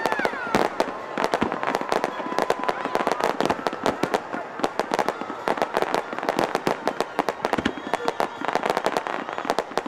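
Fireworks display: a dense, rapid barrage of bangs and crackling reports, overlapping with one another without a break.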